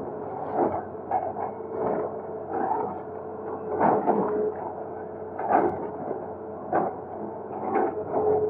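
An excavator at work, its engine running with a steady hum. It makes irregular knocks and scrapes, about every second or so, as the bucket breaks up and drags bridge concrete and rubble.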